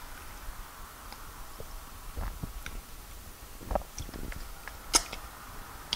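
Close-up mouth sounds of someone eating fufu and peanut soup by hand: soft, wet chewing and lip smacks, with scattered sharp clicks. The loudest smack comes about five seconds in.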